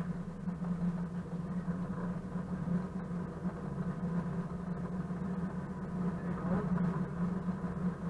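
Class 742 diesel-electric locomotive's six-cylinder ČKD diesel engine running steadily as the locomotive rolls along the track, with a strong low hum throughout, heard close beside the engine hood.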